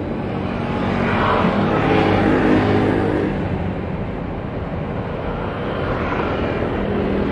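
Boeing 777 airliner's jet engines running at low power as it taxis: a steady hum with several held tones, swelling a little about two seconds in.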